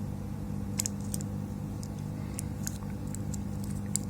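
Steady low hum of running bench equipment, with scattered light clicks and taps of small metal parts and tools being handled.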